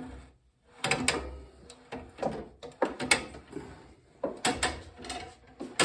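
A drill press being raised by hand: irregular metal clunks, scrapes and rattles.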